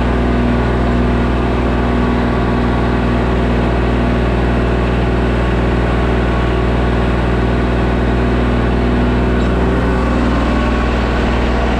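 A Kubota machine's diesel engine running loud and steady at a constant speed, with no revving.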